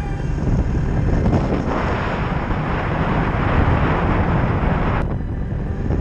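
Snowmobile engine running with wind buffeting the microphone. A louder rushing hiss swells about two seconds in and cuts off suddenly about a second before the end.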